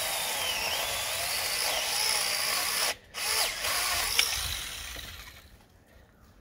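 Foonsen 21V mini battery chainsaw running and cutting through a branch about two inches thick, its motor whine wavering under load. It stops briefly about three seconds in, starts again, then winds down as the cut finishes.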